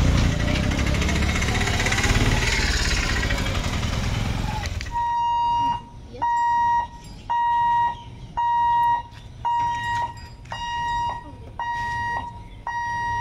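Motorcycles and other road traffic pass over a railway level crossing. About five seconds in, the crossing's electric warning hooter starts: a steady high beep repeating about once a second, sounding as the boom barriers are lowered for an approaching train.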